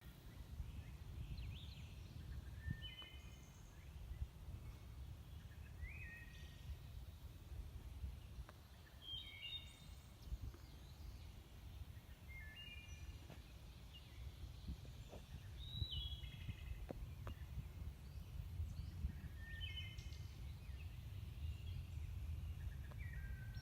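Hermit thrush singing: a clear flute-like phrase every three to four seconds, each starting on a lower note and then tumbling through quicker, higher notes, with pauses between phrases. A steady low rumble runs underneath.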